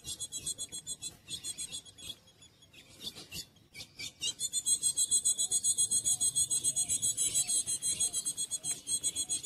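Insect chirring: a fast, high pulsing trill, about nine pulses a second, that fades out for a moment about two seconds in and returns louder near the middle.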